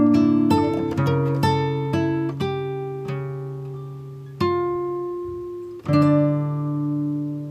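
Background music: acoustic guitar picking notes and chords that ring and die away, slowing to a couple of sustained chords later on.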